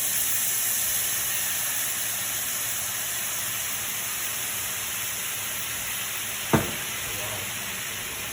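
Chicken frying in oil in a pan, a steady sizzle that slowly eases off. A single sharp knock about six and a half seconds in.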